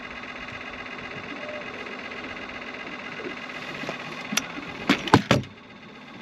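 Boat motor running with a steady whirring hum, then a quick cluster of sharp knocks about four to five seconds in, after which the hum drops away.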